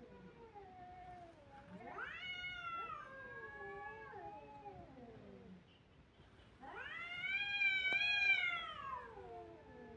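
Domestic cats caterwauling in a close face-off: long, drawn-out yowls that rise and fall in pitch, one starting about two seconds in and a louder one around the eight-second mark.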